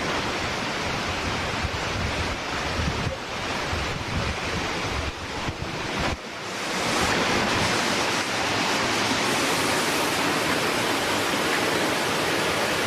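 Rushing water of a waterfall, with wind buffeting the microphone for the first half. About six seconds in it breaks off sharply, and a louder, steady roar of falling water takes over.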